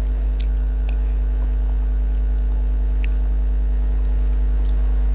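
Steady low electrical mains hum with a fainter steady tone above it, and a few faint light clicks scattered through it.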